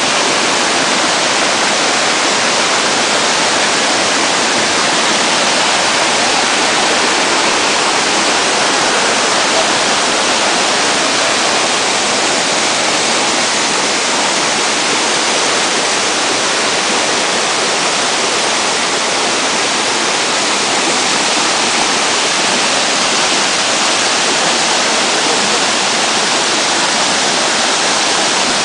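Waterfall, its falling water making a loud, steady, unbroken rush.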